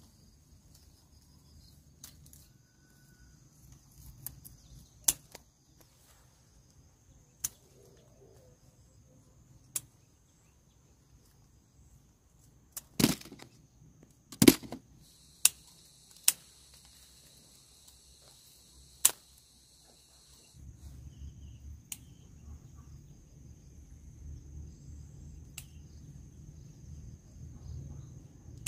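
A string of sharp, separate clicks and snaps at irregular intervals, the loudest two close together about halfway through. They sit over a faint steady high-pitched drone. A louder high buzz fills a few seconds just after the loudest snaps, and a low rumble takes over for the last third.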